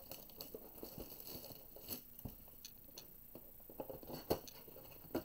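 Plastic shrink-wrap crinkling and crackling in small scattered bursts as it is stripped off a cardboard box of trading cards by hand, with a sharper snap about four seconds in as the cardboard box is opened.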